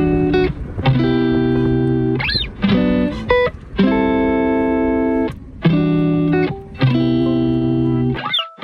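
Background music led by a plucked guitar, with held chords changing about every second and short gliding notes between them.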